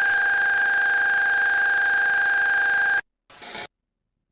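A steady, high-pitched electronic tone over tape hiss, like a dial tone or test tone on the horror tape's soundtrack, cutting off abruptly about three seconds in. A brief faint noise follows.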